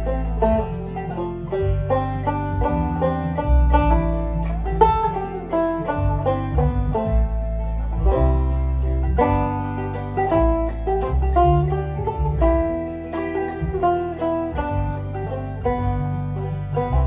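Deering Clawgrass 2 five-string banjo played clawhammer style, a steady run of plucked notes, over a computer-generated Band-in-a-Box backing track with a deep bass line underneath.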